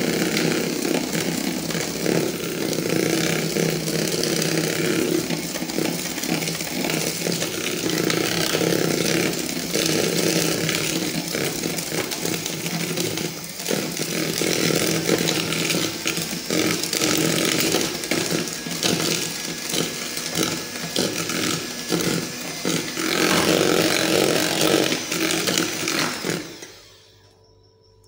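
Electric hand mixer running steadily, its beaters whisking eggs as powdered sugar is added. The motor stops near the end.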